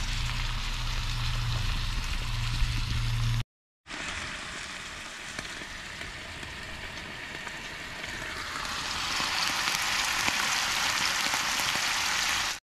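Sliced meat sizzling as it fries in a nonstick pan on a portable butane camp stove, a steady hiss with a low hum underneath for the first few seconds. After a brief break the sizzle grows louder toward the end.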